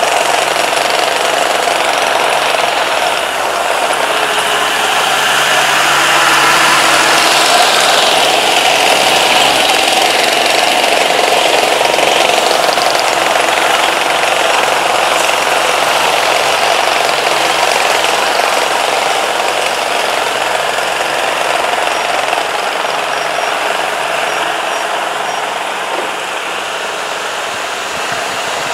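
Combine harvester's diesel engine running steadily as it drives along a narrow lane, heard from close behind. It gets a little quieter over the last several seconds as the combine draws away.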